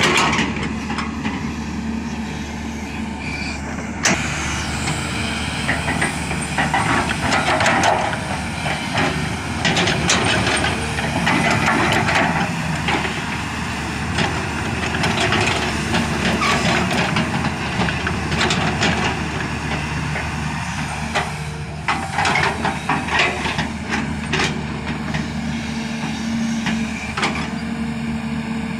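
Diesel engine of a heavy earthmoving machine running steadily at working revs, with irregular knocks and rattles through it.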